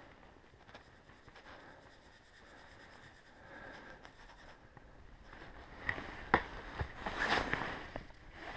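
Coat fabric rubbing and scraping against the camera's microphone, faint at first. In the second half come a few sharp knocks and a louder rustle as the camera is moved.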